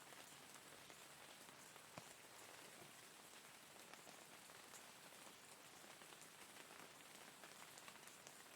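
Faint, steady rain falling on a surface, an even hiss with scattered individual drops ticking through it and one sharper drop about two seconds in.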